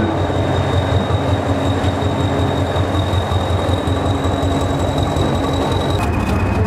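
Diesel engine of a Hastings diesel-electric multiple unit running as the power car rolls slowly into the platform: a loud, steady, deep drone with rumble. A thin, steady high whine sits above it and drops suddenly in pitch near the end.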